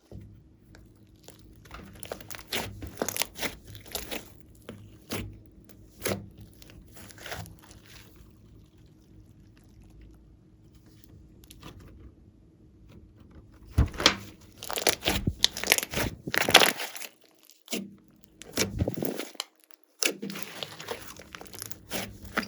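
Slime being squeezed and kneaded by hand, with irregular crunchy crackles and pops. They are sparse and quieter in the middle, then come thick and louder in the later part.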